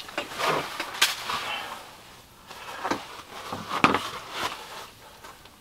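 Handling noises from an ice-fishing rod and reel being worked: scattered rustles and a few sharp clicks, the loudest about a second in and again near four seconds.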